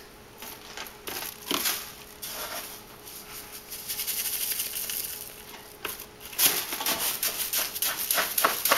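Plastic slotted scoop digging and sifting through clumping cat litter in a plastic box: gritty scraping and rattling of granules. It gets busier and louder from about six seconds in, with quick repeated scrapes.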